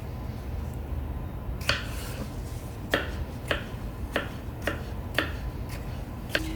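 Kitchen knife cutting a de-seeded cucumber into cubes on a cutting board: sharp separate chops, about one every half second.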